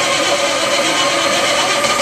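Rebuilt Caterpillar C-12 inline-six diesel engine running loud and steady at its first start after the rebuild, while starting fluid is sprayed into its air intake to keep it going.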